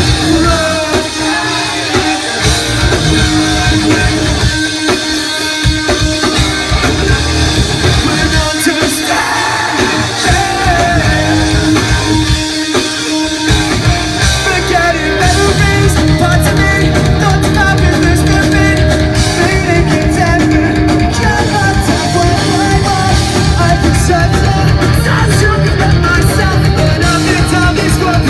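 Live rock band playing loudly, with electric guitars, drum kit and sung vocals. The bass and drums drop out in short breaks several times during the first half, then the full band plays without a break from about halfway.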